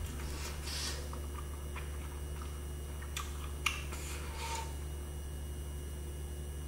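A few light clicks of chopsticks picking kimchi from a side container, over a steady low hum.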